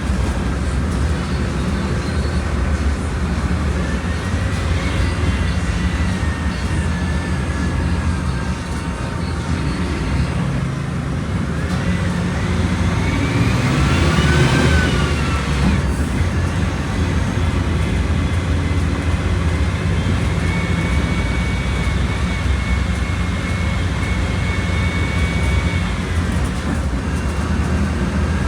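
Volkswagen Volksbus 17.230 Euro 6 bus's diesel engine running under way: a steady low drone with a whine that rises and falls as it pulls, swelling loudest about halfway through before easing off.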